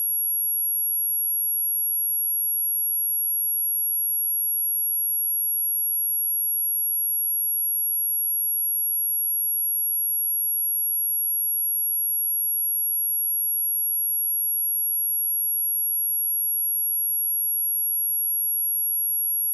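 Steady, high-pitched pure sine-wave test tone at 11303 Hz, held at a constant level with no change.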